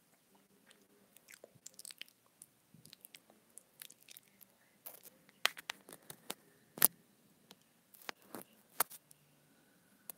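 Teeth nibbling and clicking on a wired earphone cable close to its inline microphone: irregular sharp clicks and small crunches, sparse at first, the loudest about seven seconds in.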